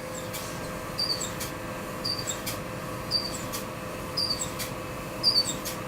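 Laser solder-paste stencil cutter running while it cuts a stencil: a steady hum with a short high chirp and a click repeating about once a second.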